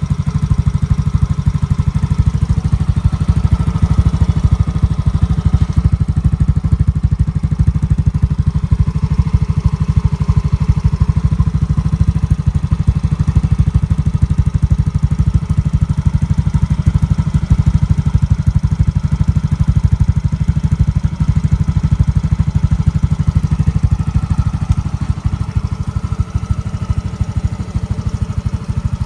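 Yamaha Mio i 125 scooter's single-cylinder four-stroke engine idling steadily through a JVT V3 adjustable aftermarket exhaust after a cold start, a fast, even, deep exhaust putter that drops slightly in level near the end.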